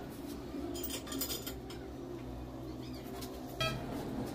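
A few light metal clinks from tools and the steel screw clamp, with faint bird chirps in the background.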